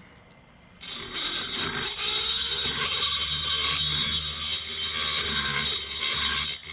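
Rotary grinding tool with a burr cutting the lower transfer ports of a 266SE chainsaw cylinder. It starts about a second in and grinds steadily with a loud, high-pitched hiss, then stops just before the end.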